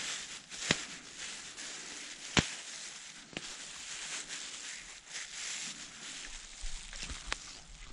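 Soft rustling with a few sharp clicks or cracks, the loudest about two and a half seconds in.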